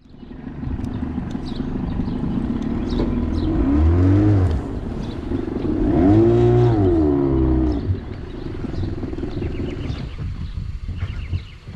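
An engine running steadily, revved up and back down twice, once about four seconds in and again for a longer stretch about six to seven seconds in, then settling lower.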